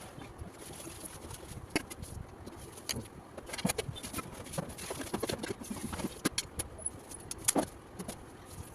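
Quick, irregular clicks, taps and rustles of desk work, such as handling pens, paper and objects on a desk.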